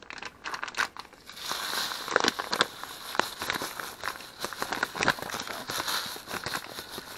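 Plastic bag of shredded coconut crinkling and crackling irregularly as it is handled.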